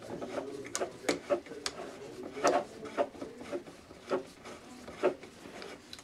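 Pliers clicking and scraping against metal parts of an aluminium LED street light housing as they grip and work pins or wires in it: a run of irregular sharp ticks, the loudest about two and a half seconds in and again about five seconds in.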